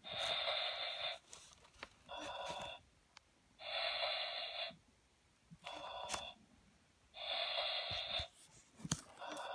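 My First Baby Annabel 'Time to Sleep' doll playing its electronic sleeping-baby breathing sound through a small built-in speaker. A longer breath alternates with a shorter one, the cycle repeating about every three and a half seconds.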